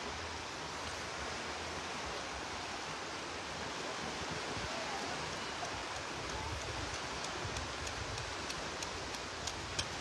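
Steady beach ambience: an even wash of gentle surf and breeze, with a few faint ticks near the end.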